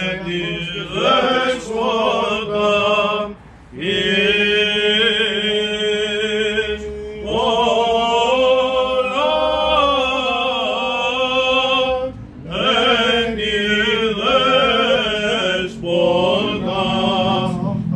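Men chanting a Greek Orthodox Byzantine hymn, long ornamented sung phrases with brief pauses for breath between them.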